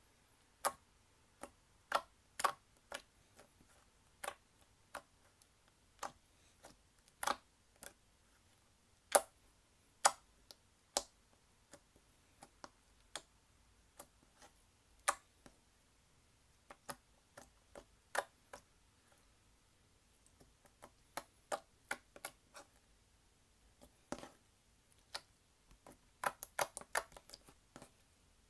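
Clear slime being pressed and stretched by hand, making irregular sharp clicks and pops as trapped air bubbles burst, with a quick run of them near the end.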